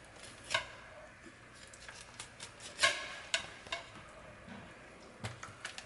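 Fillet knife cutting along a tautog on a wooden cutting board: a series of short scrapes and ticks as the blade works through skin and against the board, the loudest about half a second and three seconds in.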